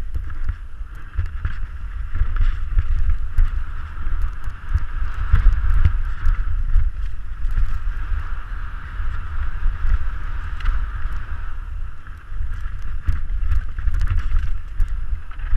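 Canyon Strive mountain bike descending a dusty dirt trail at speed: wind buffeting the microphone in a heavy rumble, tyres running over dirt and loose stones with a steady hiss, and the bike rattling in frequent sharp knocks over bumps.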